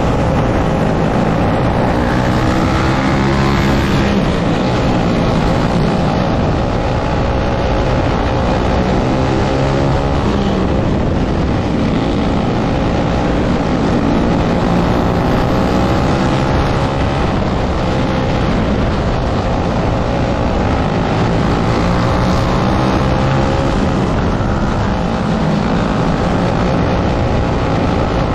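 Onboard sound of a winged dirt kart's engine at racing speed, its pitch climbing on the straights and falling away into the turns, again and again.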